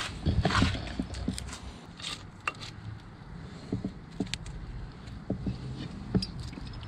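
Rustling of leafy herb sprigs being picked and handled, with a burst of rustle early on and another about two seconds in, then scattered small clicks and taps, over a steady low hum.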